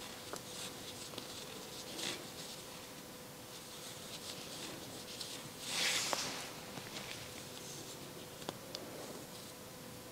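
Faint rustling and small ticks of a crochet hook working wool yarn, with one louder brief rustle about six seconds in.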